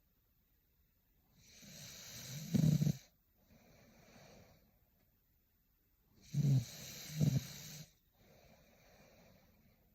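A young woman snoring in her sleep, in two slow breathing cycles. Each drawn-in breath swells into a loud low snore near its end; the second snore comes as two pulses. Softer, airy out-breaths fall between the snores.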